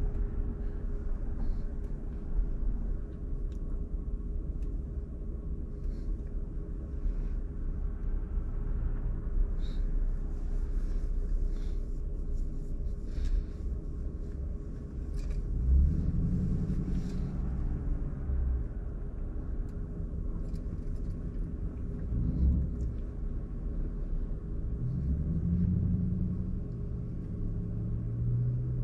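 Low steady rumble heard from inside a car waiting at a red light, with a steady hum under it. A louder low engine drone swells up twice, about halfway through and again near the end, as other vehicles pull through the intersection.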